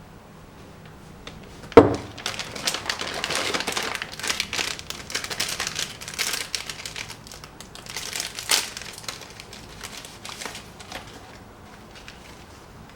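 A single sharp knock about two seconds in, then several seconds of crinkling and crackling of something being handled, dying down near the end.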